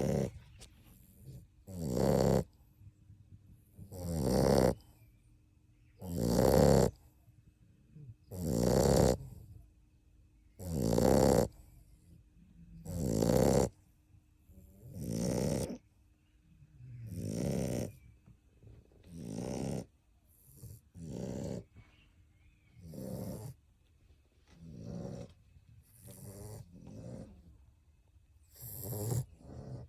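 A 7-week-old American Staffordshire terrier puppy snoring in its sleep, one rasping snore on each breath about every two seconds. The snores are loud and deep for so small a pup, and grow weaker and come a little closer together in the second half.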